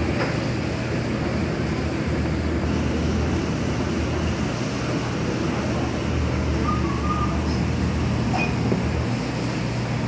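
Steady rushing background noise of a commercial kitchen, with a constant low hum underneath from running fans and equipment.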